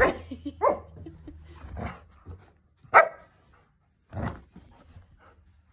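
Bernedoodle puppy barking in play: about four short barks roughly a second apart, the loudest about three seconds in.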